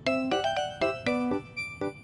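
Background music: a light, bouncy tune of short keyboard-like notes.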